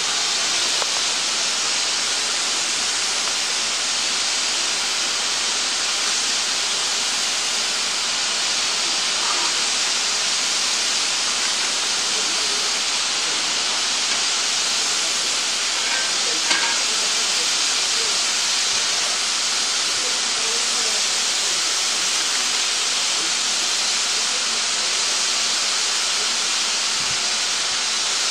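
Steady hiss of steam from an NRZ class 16A Garratt steam locomotive standing in steam, with a brief tick about halfway through.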